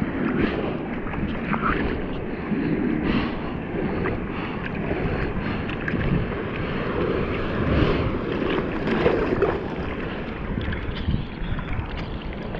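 Seawater sloshing and lapping around a bodyboard floating at the surface, with small splashes against the board.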